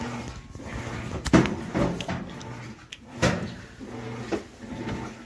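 Sheet-metal access cover of an electric water heater being handled and taken off: a few clanks and knocks, the two loudest about a second and a half and three seconds in.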